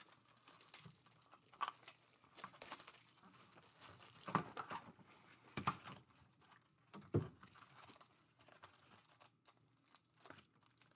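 A cardboard trading-card hobby box being opened and its foil-wrapped packs handled: quiet, irregular rustling and crinkling with scattered light taps and scrapes.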